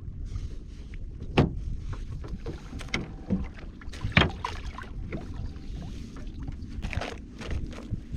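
Wind rumbling on the microphone, with scattered knocks and clatters; the loudest come about a second and a half in and about four seconds in.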